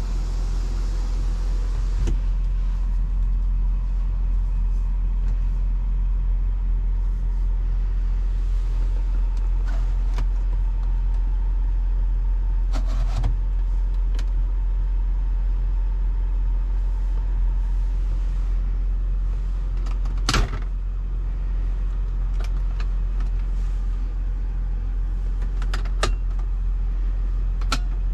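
A BMW X5 on the move: steady low rumble of engine and tyres on the road, with a few short, sharp clicks or knocks scattered through, the loudest about twenty seconds in.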